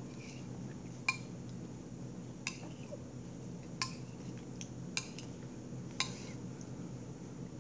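Metal spoon clinking and scraping against a ceramic plate while scooping up beans, five short clinks about a second apart.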